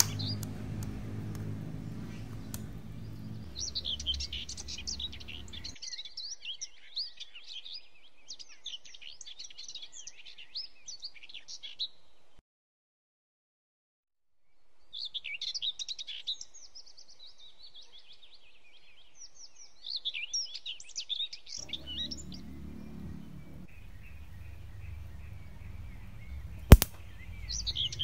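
Small birds chirping in quick twittering clusters, breaking off for a couple of seconds partway through and then resuming. Near the end there is a single sharp click over a low background rumble.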